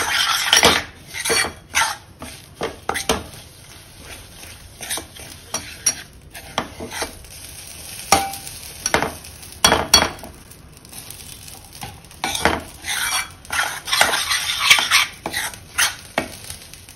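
Steel spoon scraping and clinking against a stainless-steel pan in irregular strokes, stirring besan (gram flour) roasting in ghee.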